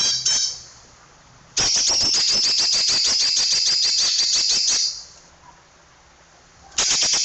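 Green leafbird (cucak ijo) singing: two short notes, then a run of about three seconds of high, rapid-fire repeated notes ('tembakan rapat'), a pause, and a second run beginning near the end.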